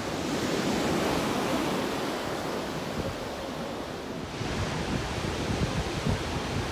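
Pacific Ocean surf breaking on the beach, a steady rushing wash of waves. After about four seconds, gusts of wind buffet the microphone with irregular low thumps.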